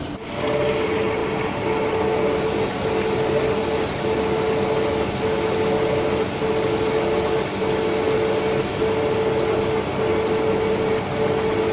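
Steady machine noise with a hum that briefly dips about once a second.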